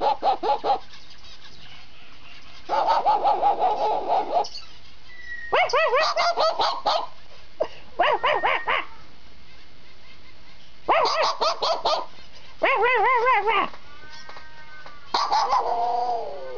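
A pet bird imitating a dog's bark, in repeated runs of quick, pitched barks, each run about a second long, with short pauses between.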